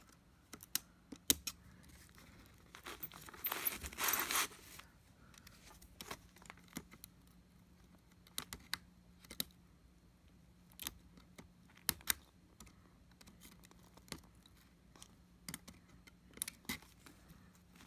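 Scattered small clicks and knocks of hands handling a Hoover WindTunnel vacuum's plastic brush roll and base, picking at debris caught at the roll's end, with one longer scratchy rustle about three to four and a half seconds in.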